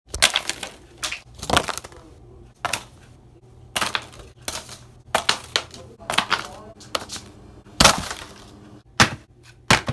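Playing cards and a plastic puppet head clattering on a desk: a string of sharp, irregular clicks and slaps, with a sharper cluster about eight seconds in as the cards spill over the puppet.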